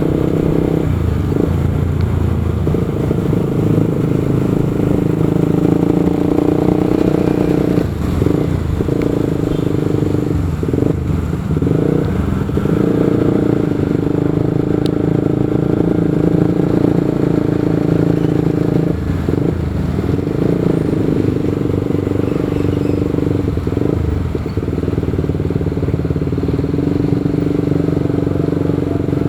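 Motorcycle engine running steadily while being ridden along a road, heard from on the bike. Its drone dips briefly now and then as the throttle eases.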